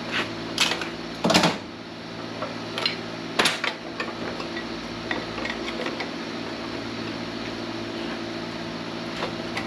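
A steady motor hum, with several sharp knocks and cracks, the loudest about a second and a half in, as scrap transformers are worked in a hydraulic press.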